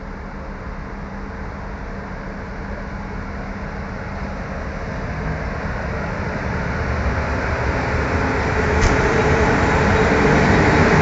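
ASEA-design 441-class electric locomotive and its passenger coaches rolling slowly past at close range. A steady low hum is heard under wheel and running noise, which grows steadily louder as the locomotive draws alongside and the coaches pass.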